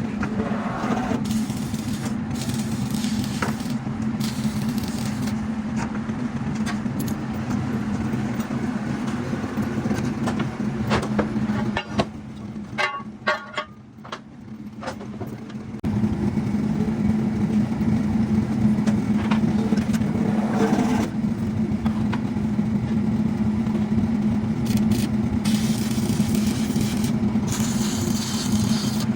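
A steady engine drone with a strong low hum. It drops away for about four seconds midway, with a few clicks and knocks, then resumes.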